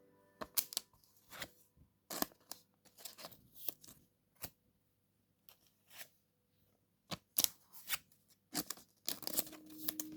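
Pokémon trading cards and a foil booster pack being handled: irregular crinkles and light clicks with short pauses between them. Background music comes in near the end.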